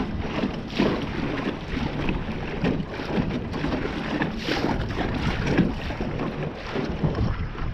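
Small john boat under way on a lake, its motor running steadily, with wind gusting on the microphone.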